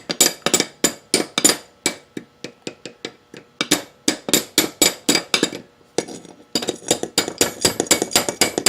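Hammer tapping on metal: quick, sharp, ringing strikes about four to five a second, in three runs with short pauses between them.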